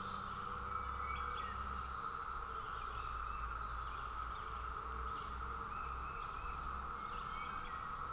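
Chorus of 17-year periodical cicadas, a steady unbroken drone, with a few faint bird chirps over it.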